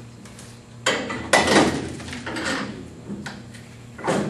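Metal clanking and scraping as a hub-style brake rotor and its steel centering cone are fitted onto an Ammco brake lathe's arbor, with a burst of clatter about a second in and another sharp knock near the end.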